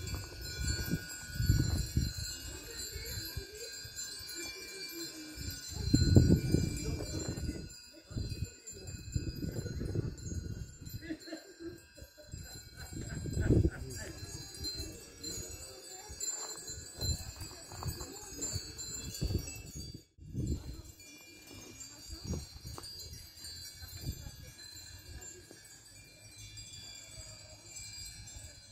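Wind chimes tinkling, a cluster of thin, sustained high tones, with irregular low rumbles that swell loudest about six seconds in and again about thirteen seconds in.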